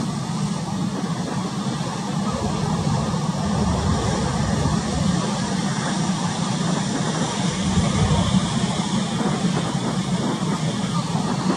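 Steady low rumble of a fishing vessel's engine under way, blended with the wash of a choppy sea, growing slightly louder in the middle.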